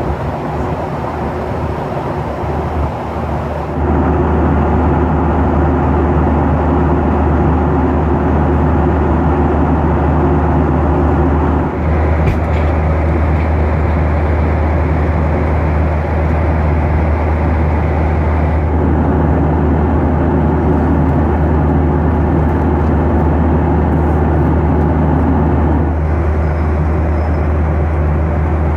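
Steady drone of a Boeing 737-800 in flight, heard from inside the cabin: engine and airflow noise with a deep hum. It gets louder about four seconds in, and a faint high whine joins for several seconds in the middle.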